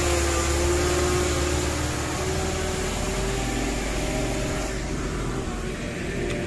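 A vehicle engine running steadily: a low rumble with a droning tone, which eases off about two seconds in.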